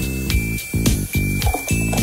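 Background music: a jingly, tinkling children's tune over a bouncing bass line with a steady beat.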